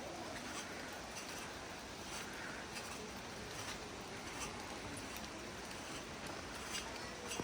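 Footsteps at a walking pace, about one every three-quarters of a second, over a steady outdoor hiss.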